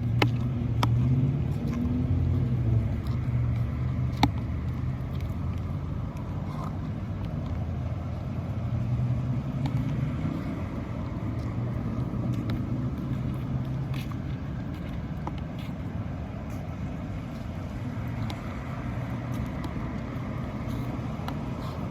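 Steady low rumble of a running motor vehicle that swells and fades slightly, with a few sharp clicks.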